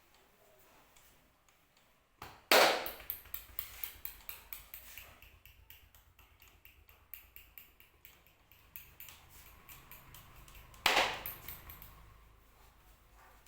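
Rapid hand strikes of a percussive head and shoulder massage, about four a second. The strikes start loudly about two and a half seconds in and fade, and a second loud bout starts near the end.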